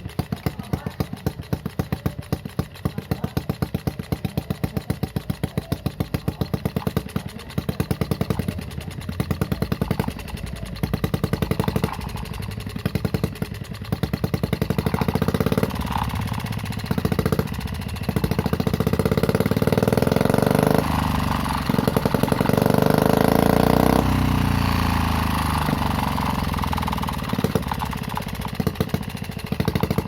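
Homemade mini four-stroke engine running through its new exhaust: a slow idle with distinct, evenly spaced firing thumps, then revved in short bursts and held at higher revs for several seconds about halfway through, before dropping back toward idle near the end.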